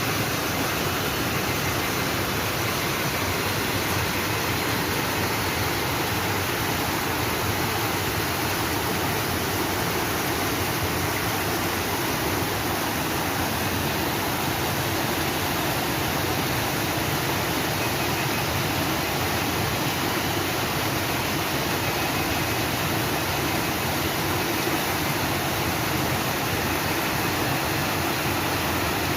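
Water flowing in a stream: a steady, even rush.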